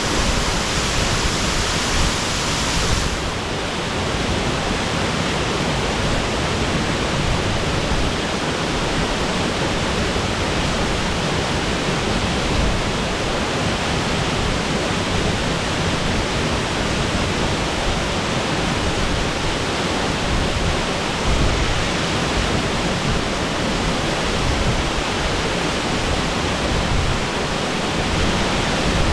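Shasui Falls pouring: a steady, loud rush of falling water that does not let up. About three seconds in, the highest hiss drops a little.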